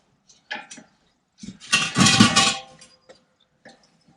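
Metal parts and tools clinking as they are handled. A few light knocks come first, then a louder metallic clatter with ringing about one and a half seconds in.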